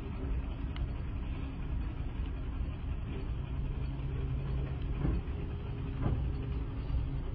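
Sumitomo crawler excavator's diesel engine running steadily as the machine lowers its boom and bucket, with a couple of short knocks near the end.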